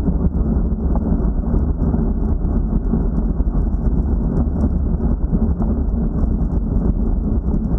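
Wind buffeting the microphone of a bicycle-mounted action camera riding at about 35 km/h: a steady, dull rumble.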